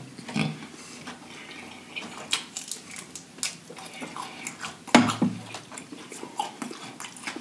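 Close-miked chewing of crispy battered fried shrimp: a string of small wet crunches, clicks and lip smacks, with one louder mouth sound about five seconds in.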